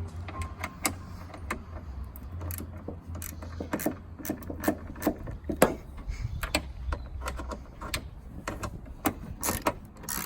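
Irregular metallic clicks and clinks, a few a second, from a socket wrench and loose bolts as the 10 mm bolts holding a car's rear spoiler are undone, over a low steady hum.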